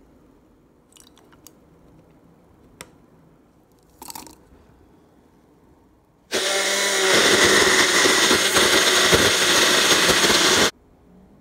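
Personal blender switching on about six seconds in and running for some four seconds, crushing frozen mango chunks in coconut milk and condensed milk, then stopping suddenly. Before it, a few light clicks and knocks.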